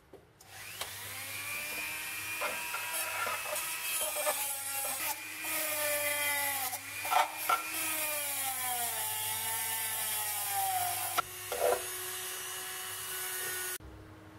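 Handheld rotary tool spinning a small brass wire brush against the aluminium cup's inside: a motor whine whose pitch sags and recovers as the brush bears on the metal, over a scratchy hiss, with a few sharp clicks. It cuts off suddenly near the end.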